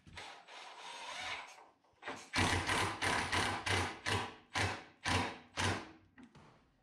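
Cordless impact driver driving a screw into a wooden ceiling. It spins the screw in for a moment, then hammers it home in a string of short bursts, about two a second.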